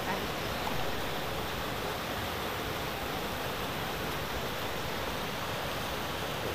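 Fast mountain river rushing over rocks and rapids, a steady continuous noise of whitewater. The river is running high, which the walkers put down to a floodgate opened upstream.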